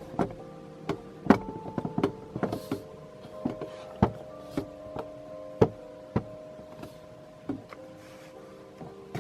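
Church bells ringing: irregular strikes, each leaving long ringing tones that hang on and overlap at several pitches.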